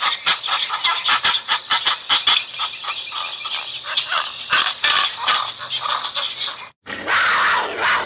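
Peruvian pelican colony sounds: short clicking calls in quick, irregular succession. After a brief break near the end, a loud, rough puma call begins.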